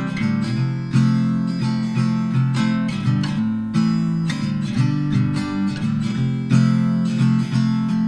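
Background music: an acoustic guitar strummed in a steady rhythm, with the chords changing every second or so.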